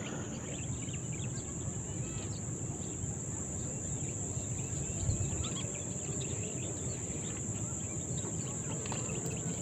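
Insects trilling in one steady, high-pitched drone, with faint scattered chirps and a low rumble underneath.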